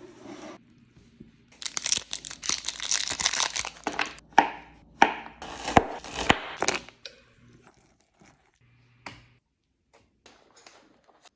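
Plastic candy bar wrappers being torn open and crinkled. Then come four or five sharp cracks, and a few faint clicks near the end.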